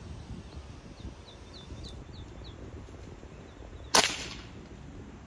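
A single sharp crack from a .25 calibre Kervan Arms Air Boss air rifle firing, about four seconds in, with a brief ringing tail.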